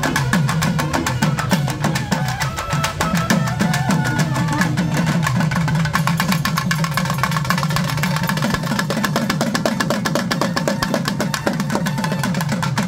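Kerala chenda drums beaten in fast, continuous strokes, with wind instruments playing a melody over the drumming.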